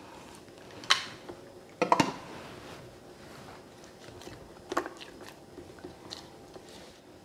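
Silicone spatula scraping and knocking inside the plastic bowl of a Kenwood mini chopper, with a few sharp clicks about 1 and 2 seconds in and another near 5 seconds.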